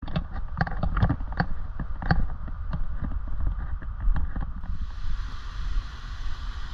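Footsteps on a dirt trail littered with dry bamboo leaves, about two steps a second over a low rumble. About two-thirds through, this gives way suddenly to the steady rush of a stream spilling over a small stone weir.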